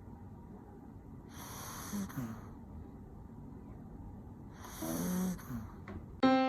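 Papillon dog snoring in deep sleep: two slow breaths about three seconds apart, the second with a rough, pitched snore. Piano music comes in right at the end.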